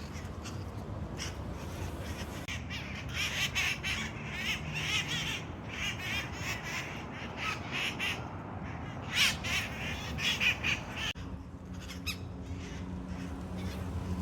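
A flock of wild red-masked parakeets screeching, harsh squawking calls coming in clusters that are busiest through the middle and fall away about three quarters of the way in.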